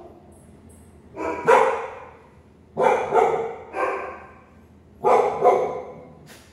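A dog barking, mostly in pairs of short barks, about seven barks in all, spaced a second or so apart.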